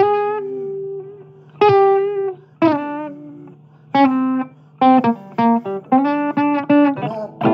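Blues guitar playing an instrumental break, a run of separately plucked notes that ring and decay, over a steady low drone.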